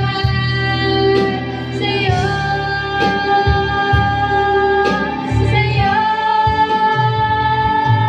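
Women singing karaoke into a handheld microphone over a videoke backing track, holding long notes that shift pitch about two and six seconds in.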